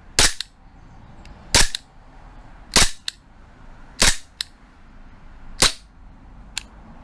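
Stark Arms G17 Gen4 gas blowback airsoft pistol firing five single shots about a second and a half apart, each a sharp pop, most followed by a fainter click a moment later; one lone faint click comes near the end.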